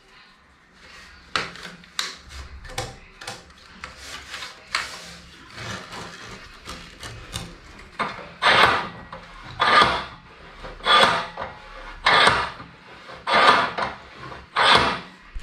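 Wooden rods and cotton warp threads of an upright rug loom rubbing and scraping: light scrapes and clicks at first, then, about halfway through, six loud rasping strokes a little over a second apart.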